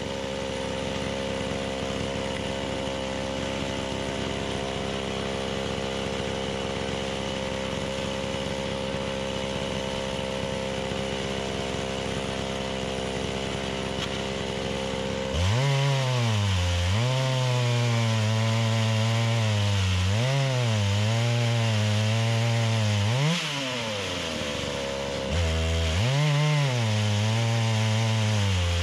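Holzfforma G660 two-stroke chainsaw on a chainsaw mill. It runs steadily at a lower, even speed for about half the time, then opens up louder, its pitch wavering as the bar cuts through pine under load. About two-thirds through it falls back to the steady lower speed for a couple of seconds, then picks up and cuts again.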